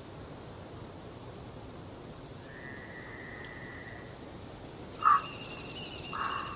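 Wild birds calling over a steady background hiss: a thin held whistle a few seconds in, then a sudden loud short call about five seconds in, followed by a trilling call and more short calls near the end.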